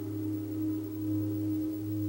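A held drone in the soundtrack music: two steady low tones, like a singing bowl or synth pad, after the plucked notes stop.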